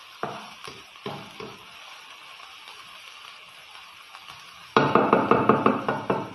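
Wooden spatula stirring minced onions in a metal frying pan over a low frying sizzle: a few scrapes in the first second and a half, then a loud burst of fast scraping in the last second and a half.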